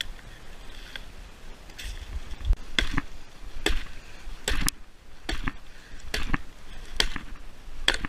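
Hatchet chopping into a dead branch: sharp wooden knocks about once a second, beginning about two seconds in.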